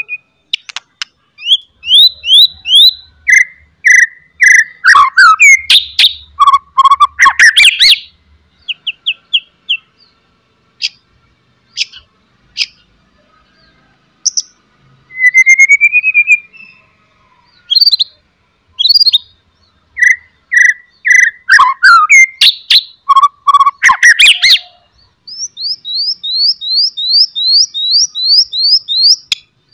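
White-rumped shama singing: loud, sharp whistled phrases mixed with harsh rattling chatter, in two dense bursts with sparser notes between. It ends with a fast run of about a dozen repeated rising notes.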